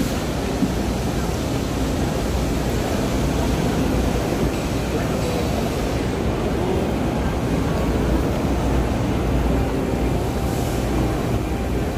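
Steady din of a busy exhibition hall: indistinct crowd chatter over a continuous low rumble.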